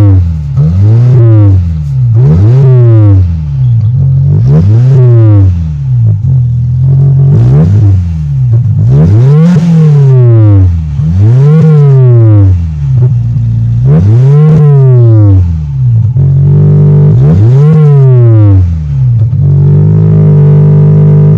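Maruti Suzuki Esteem engine revved again and again through its modified silencer, each blip rising and falling back. Twice near the end the revs are held briefly before dropping.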